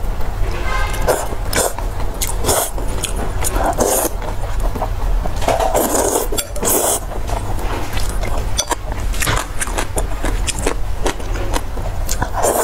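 Close-miked eating: irregular chewing, mouth clicks and smacks, with a steady low hum underneath.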